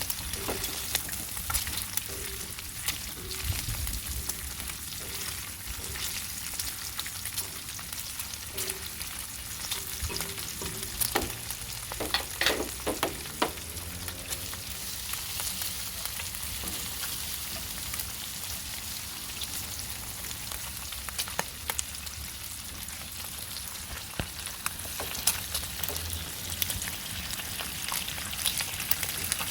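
Bacon, peppers and onions frying in oil: a steady sizzle with scattered crackles and pops, a few sharper ones about halfway through.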